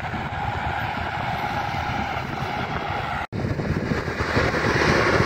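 New Holland TS6.120 tractor engine running steadily under load while pulling a heavy 26-disc harrow through dry soil. The sound cuts out for an instant about three seconds in, then comes back louder and brighter as the tractor is nearer.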